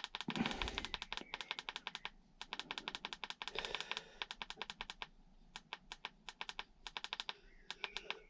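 Rapid runs of small plastic button clicks on a handheld Topdon BT200 battery tester, several a second with short pauses, as the cold-cranking-amps value is stepped up to 850, with a little soft handling noise.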